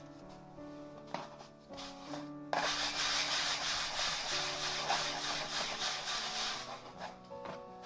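Rubbing and scraping of bread dough being worked by hand on a work surface, a steady friction noise that starts about two and a half seconds in and eases off near the end, over soft background music.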